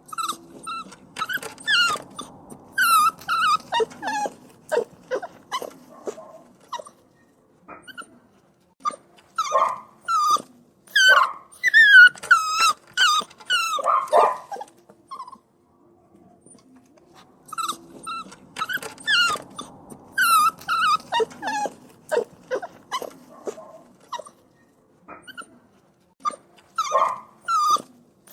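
Puppies whining and crying: clusters of high-pitched whimpers and squeals, broken by two short pauses.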